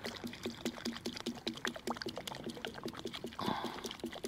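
Petrol pouring into a lawn mower's fuel tank, gurgling in a quick, irregular run of small glugs, with a brief hiss about three and a half seconds in.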